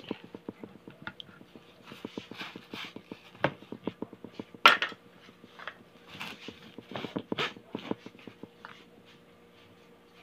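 Scattered knocks and clatters of dishes and kitchenware being handled, with one sharper clack a little before five seconds in, over a faint steady hum.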